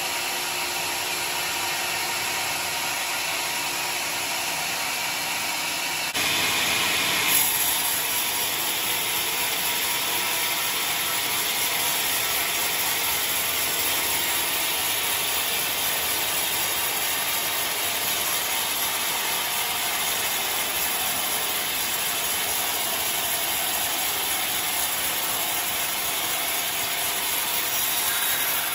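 Band sawmill cutting lengthwise through a rotten Johar log with an American-made saw blade: a steady mechanical saw noise. It grows louder and brighter about six seconds in for a second or so, then settles back.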